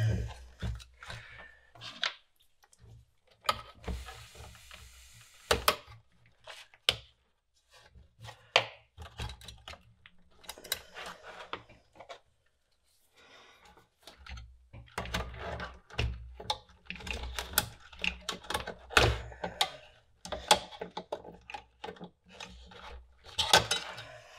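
Irregular clicks, knocks and rubbing from hands and tools working on the parts of a computer power supply, as its mains switch is worked loose. There is a short scrape about four seconds in and a brief lull near the middle.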